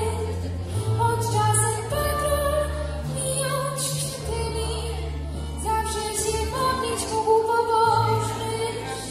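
Female solo singing into a microphone, holding long notes that step from one pitch to the next, over an instrumental accompaniment with sustained low bass notes.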